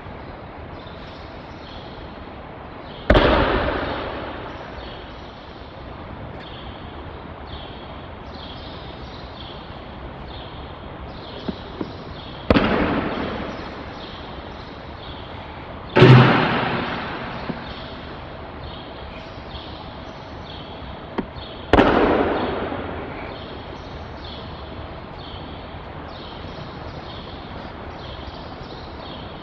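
Four aikido break-falls, a body slapping and thudding onto the tatami mat as the partner is thrown, each hit ringing out for a second or two in a large reverberant hall. A few small knocks fall between them, over a steady hiss.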